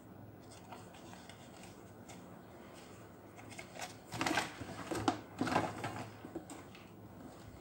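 Cardboard tool boxes and packaging being handled and set down: a few short rustles and scrapes about halfway through, after a quiet start.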